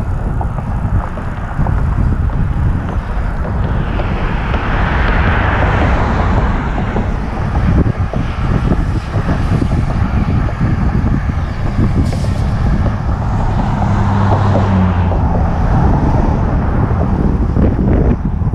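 Wind buffeting the microphone of a moving bicycle, with motor vehicles passing on the road. A passing vehicle's noise swells about a quarter of the way in, and a steady engine hum sounds for a couple of seconds past the two-thirds mark.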